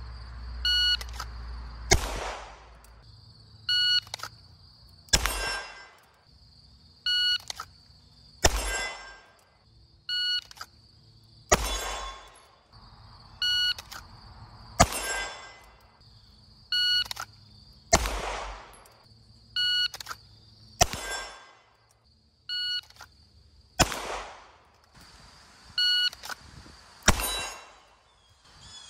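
Shot-timer start beep followed about a second and a quarter later by a single 9mm pistol shot from a CZ Shadow 2 drawn from the holster, the pair repeating nine times about every three seconds. Each shot is a loud sharp crack that trails off in an echo.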